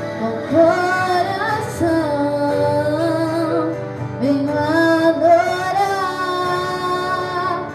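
A song with a woman singing over instrumental accompaniment, in two long drawn-out phrases.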